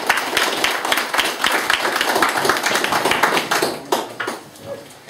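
A small group of people clapping their hands in applause, dying away about four seconds in.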